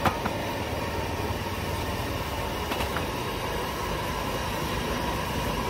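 Steady rumbling roar of a gas burner firing under a stacked aluminium seafood steamer, with a sharp metal clank as the steamer lid is handled at the start and a fainter click near 3 s.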